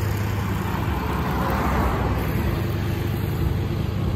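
A car passing on the street, its road noise swelling and fading over about two seconds around the middle, over a steady low hum.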